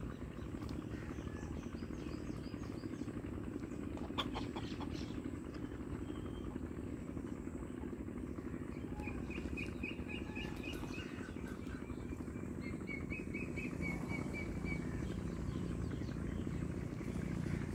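Outdoor rural ambience: a steady low motor hum runs throughout, and small birds chirp in quick high-pitched series partway through. There is a single sharp knock about four seconds in.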